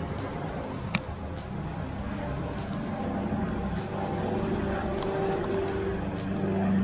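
A small bird giving repeated short high chirps, roughly one every half second, over a steady low hum, with a single sharp click about a second in.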